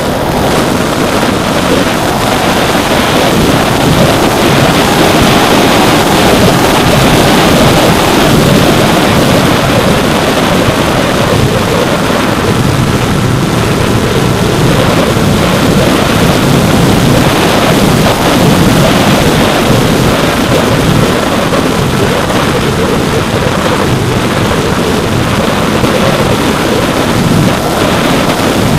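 Loud, steady rushing noise of wind and a propeller, picked up by the onboard camera of an RC FPV plane in flight, driven by a brushless outrunner motor with an 8-inch prop. A faint high motor whine comes and goes in the second half.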